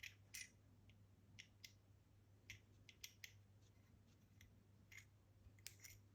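Faint, scattered small clicks and taps from hands and metal parts working a Kaba experT lock cylinder as its core is freed from the shell, over a low steady hum.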